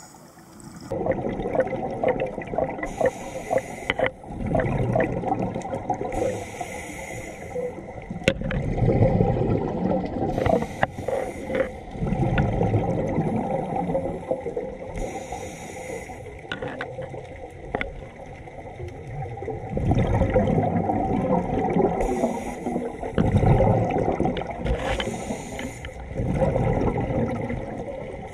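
Scuba diver breathing through a regulator underwater: bubbling gurgles from each exhale, with short hisses from the inhales, repeating every few seconds.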